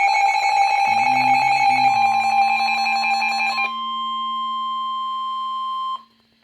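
Emergency Alert System warning tones: a harsh, buzzing, pulsing tone that stops about three and a half seconds in, overlapped from about two seconds in by a steady single high tone that holds until it cuts off about six seconds in.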